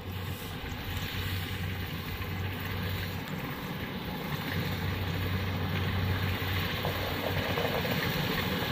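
Kubota rice combine harvester running while it cuts rice, a steady engine hum under the clatter of the header and threshing, growing louder as the machine comes closer.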